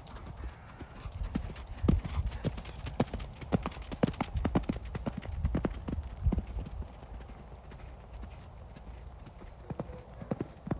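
Hoofbeats of a grey horse cantering on a sand arena, quick clusters of dull thuds. They are loudest in the middle of the stretch and grow fewer and fainter after about seven seconds as the horse moves farther off.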